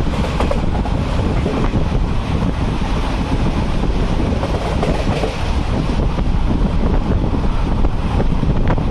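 A moving passenger train's steady low rumble, with wind rushing hard over the microphone.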